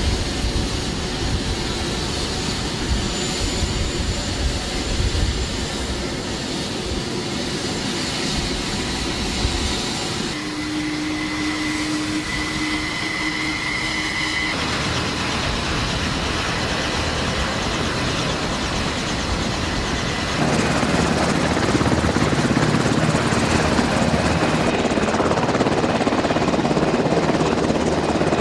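Parrot AR.Drone quadcopter's electric rotors whirring in flight. The sound shifts abruptly a few times, with a steady whine for a few seconds partway through, and grows louder for the last several seconds.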